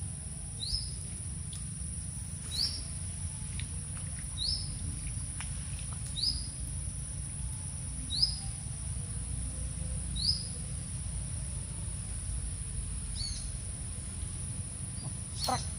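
A bird calling a short, high chirp about every two seconds, seven times or so, over a steady high-pitched drone and low outdoor rumble.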